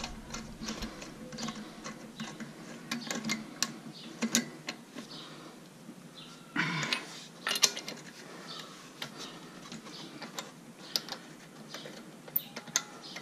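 Lug nuts being run onto a car wheel's studs: repeated small metal clicks and clinks, with a louder metallic clatter about six and a half seconds in.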